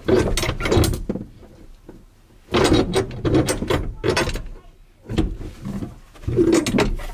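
Rear seat frame and latch of a Chevrolet Silverado 2500HD crew cab clunking and rattling as it is yanked and shoved by hand, in three bouts of knocks. The seat is wedged and will not fold up freely.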